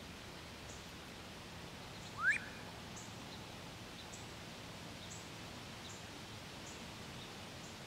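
A single quick rising whistled squeal of a wood duck about two seconds in, over a faint steady outdoor hiss.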